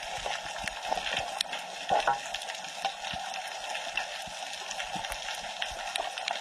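Underwater reef ambience: a dense, steady crackle of tiny clicks, typical of snapping shrimp on a coral reef, with a couple of louder knocks about two seconds in.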